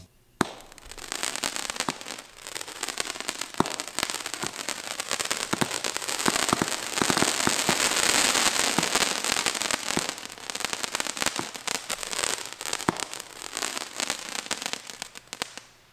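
Cannon Fireworks Snake Pit, a 19-shot 200-gram consumer cake, firing: a sharp launch thump about half a second in, then a dense crackle of many small pops from its crackling comet tails. The crackle builds toward the middle, thins out and stops just before the end.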